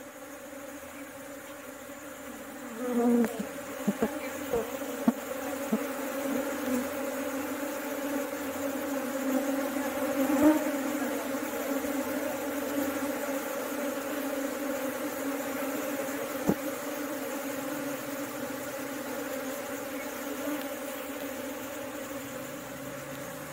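A colony of honey bees buzzing steadily, many bees in the air around an open box hive as they are moved out of a hollow log; the hum grows louder about three seconds in. A few sharp clicks of handling come in the first few seconds and twice later.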